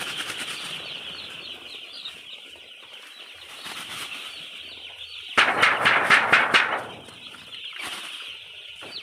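A flock of broiler chickens peeping steadily, many short high calls overlapping. About five and a half seconds in, a loud flurry of wing flapping lasts just over a second.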